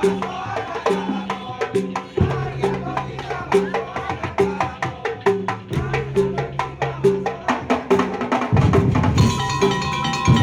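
Madurese daul (tong-tong) percussion music: a fast, steady beat of struck wooden and drum percussion over a repeating pitched pattern.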